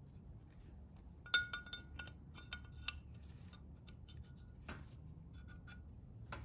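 Steel ball bearing clinking against the aluminium transfer case housing as it is set by hand into its bore: a cluster of light, ringing metallic clinks starting about a second in and lasting a couple of seconds, then a softer knock.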